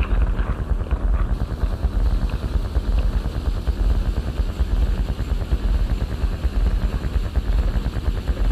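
Experimental electronic music: a dense, rapid crackling noise texture over a heavy low rumble, with a few brighter higher crackles in the first second or so.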